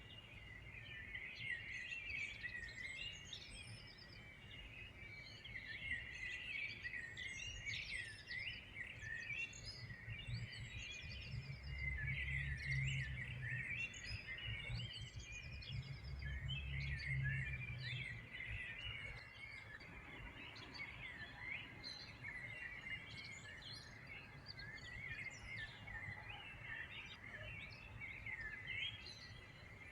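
Many small birds chirping and twittering at once in a dense, continuous chorus of overlapping short calls. A faint low hum sits underneath for several seconds in the middle.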